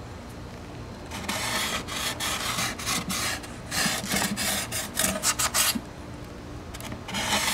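Paint marker tip drawn along a metal ruler over a Styrofoam nose section, making a run of short strokes. The strokes pause near the end, then one more follows.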